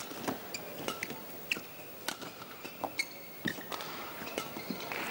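Badminton rally: rackets cracking against the shuttlecock in a run of sharp hits, with players' shoes squeaking and thudding on the court mat between strokes.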